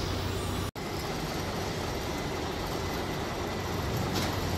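Steady low rumble of heavy equipment engines over outdoor background noise, broken by a momentary dropout under a second in.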